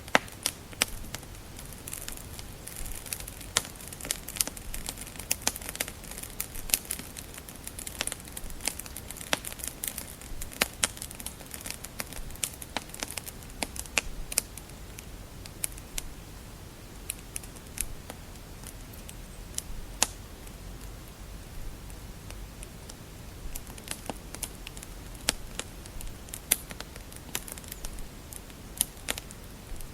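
Wood fire crackling: irregular sharp pops and snaps over a low, steady hiss, busiest in the first half, thinning out for a while midway, then picking up again.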